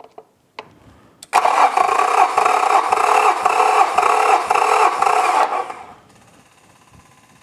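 Starter motor cranking a Yamaha F225 V6 outboard with its spark plugs out and fuel injection disabled, for a compression test: an even, rhythmic cranking sound for about four and a half seconds that starts about a second in and then stops.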